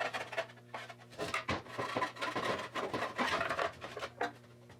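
Irregular scratching and rubbing strokes of an applicator working rust converter into the inside of a rusty sheet-metal quarter valance, over a faint steady low hum.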